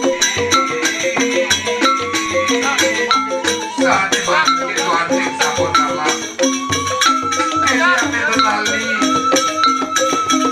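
Balinese rindik ensemble playing: bamboo xylophones struck with mallets in fast, dense interlocking patterns over a steady low beat, in a koplo-style arrangement, with a held, wavering high melody line above.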